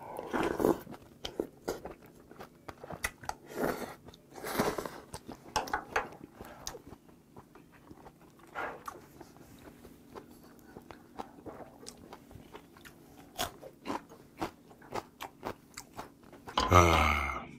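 Close-up eating sounds: a slurp from a spoonful of soup and bean sprouts, then irregular crunching bites and chewing, with a green chili pepper bitten partway through.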